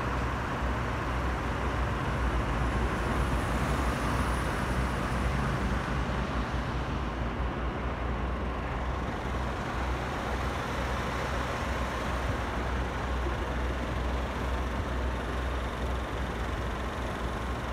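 Steady motor-vehicle noise: a low engine hum under an even hiss of road noise.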